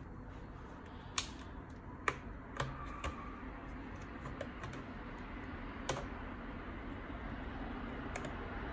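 Sharp plastic clicks, about six of them spread irregularly, from the bottom cover of a Lenovo Legion Y540 laptop being pressed and worked open with a plastic card, the cover's clips snapping.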